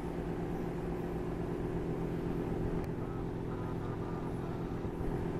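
Steady low hum from an unseen appliance or machine in the room, with a faint, thin, broken whine from an English bulldog puppy about three to four and a half seconds in.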